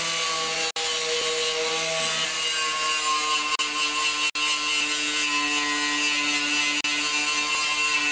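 Corded electric angle grinder with a wire brush, scrubbing rust spots off a steel tractor fender: a steady motor whine under a hissing scrape. The pitch sags a little about two seconds in as the brush bears on the metal.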